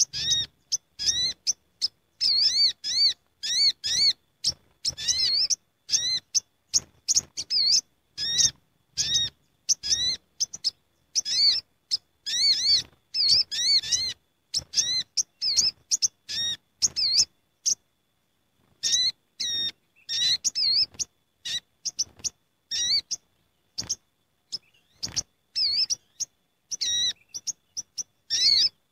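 Olive-backed sunbirds (sogok ontong) calling together in a busy, noisy chorus, the kind of lure recording used to draw in sunbirds. Rapid high chirps follow one another in quick succession, each rising and falling in pitch. There is a brief pause a little past the middle.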